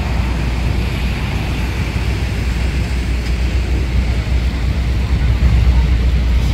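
Steady city street noise: a constant low traffic rumble with an even hiss over it.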